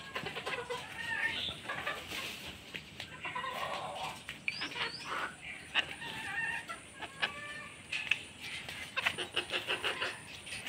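Domestic hens clucking and calling while they forage, with short chirps mixed in and a quick run of short clucks near the end.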